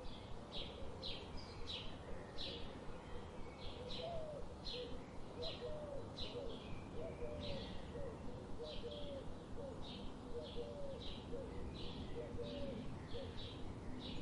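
Birds chirping: short, high chirps repeating about twice a second, with a series of low, short hooked notes underneath and a faint steady background hiss.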